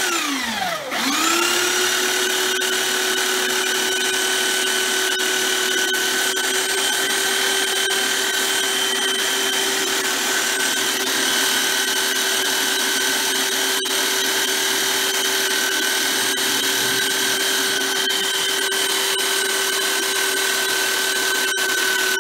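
Electric belt sander's motor winding down for about a second, then spinning back up and running at a steady high whine.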